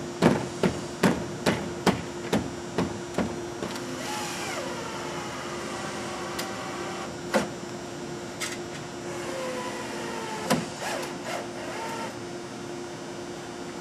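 Hammer nailing a PVC wall panel's nailing fin: a quick series of blows, about two and a half a second, getting quieter over the first three seconds. Then come a few separate knocks and squeaky rubbing of the plastic panel as it is worked into place.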